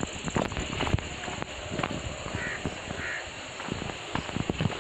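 Sandalled footsteps scuffing and crunching irregularly on a dry stony dirt path, with leaves brushing past. About halfway through, a bird gives two short calls.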